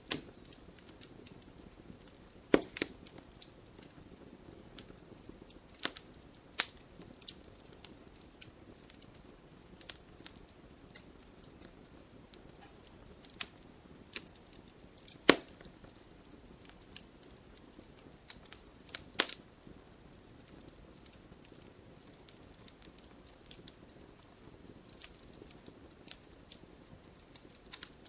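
Wood fire in a fireplace crackling over a low steady hiss, with scattered sharp pops. Three louder snaps come at about 2.5, 15 and 19 seconds.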